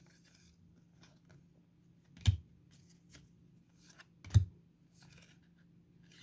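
Football trading cards being handled and flipped through: faint paper rustling with two soft knocks about two seconds apart.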